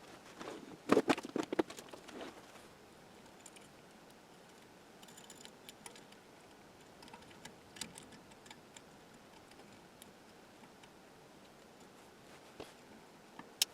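Small objects being handled, with light knocks and clicks: a quick cluster of sharper knocks about a second in, then scattered faint ticks.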